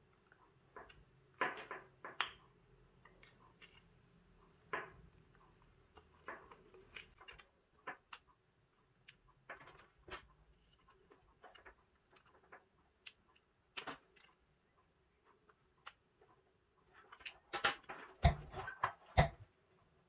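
Small screwdriver clicking and scraping against a plastic E14 lamp socket as it is worked apart, in scattered light clicks and taps, with a burst of louder clicks and two deeper knocks near the end.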